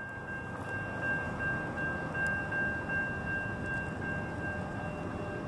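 Railroad grade-crossing warning bell ringing steadily as one high tone, over a steady rushing noise.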